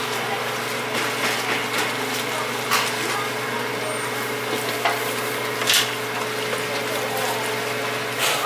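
Twisted doughnuts sizzling as they deep-fry in a wide pan of oil. Wire-mesh skimmers stir them, with a few sharp clicks as metal knocks against the pan.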